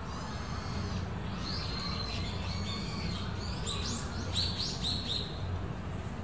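Small birds chirping: scattered short high chirps, then a quick run of them about four seconds in, over a steady low hum.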